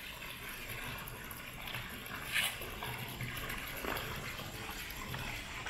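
Steady rush of running water, with a brief sharper sound about two and a half seconds in.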